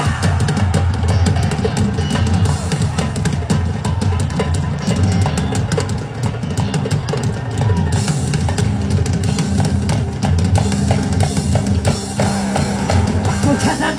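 Instrumental music with a steady drum-kit beat: bass drum, snare and rimshots over a heavy bass line.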